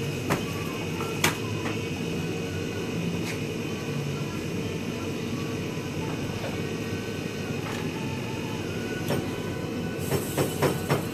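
Steady low rumble of kitchen machinery. A few sharp clicks break through, with a quick run of taps near the end.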